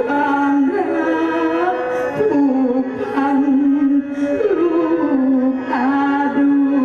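Music with a single slow, ornamented melody line that slides between long held notes.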